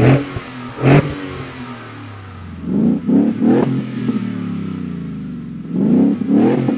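Ford F-150's 5.0L Coyote V8 idling and blipped with quick throttle revs: two short blips on the stock exhaust at the start, then a steady idle with two pairs of revs about three seconds apart through a Magnaflow Street Series dual cat-back exhaust with middle side exit. The Magnaflow tone is rather mild, with no resonator, just a larger suitcase-type muffler.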